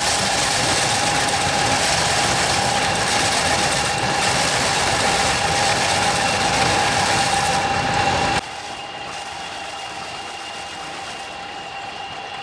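A small engine running steadily at constant speed, with a steady whine over its noise. About eight seconds in it suddenly becomes much quieter and carries on at the same pitch.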